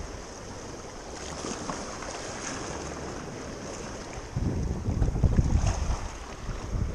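Sea surf washing against the shore with wind buffeting the microphone. The low rumble gets heavier from about four and a half seconds in.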